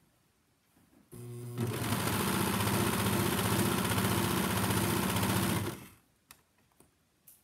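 A four-thread serger (overlock machine) stitching a seam in satin fabric. It starts about a second in, comes up to full speed, runs steadily for about four seconds, then stops.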